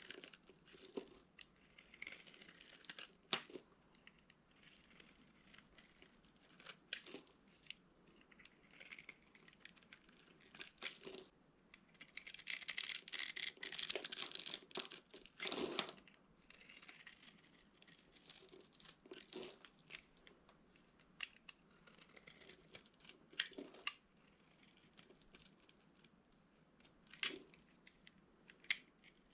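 Dry soap being crushed, crunching and crackling in a run of crisp crumbling crunches, thickest and loudest from about twelve to sixteen seconds in.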